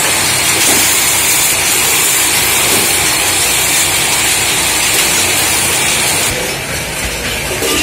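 Belt-driven lathes spinning aluminium cooking pots: a steady, loud machine din with a strong high hiss. About six seconds in, the hiss drops away and the sound gets a little quieter.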